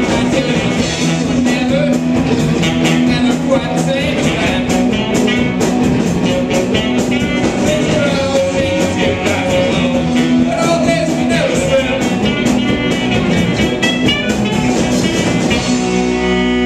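Live rock band playing loudly: drum kit, electric guitar, bass and saxophone, with singing. The song ends on a held chord in the last second or so.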